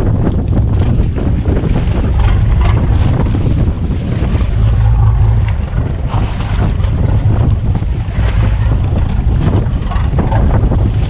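Strong wind buffeting the microphone on a small fishing boat in a rough, choppy sea, over a steady low rumble, with occasional short knocks and splashes.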